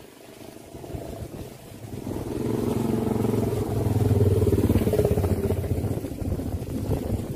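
A motorcycle engine running close by, growing louder from about two seconds in and loudest around the middle, then easing off a little.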